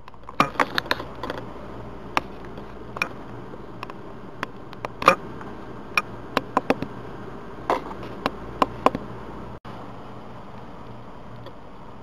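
Handling noise: irregular sharp clicks and taps, about twenty in nine seconds and loudest about five seconds in, over a steady low hum.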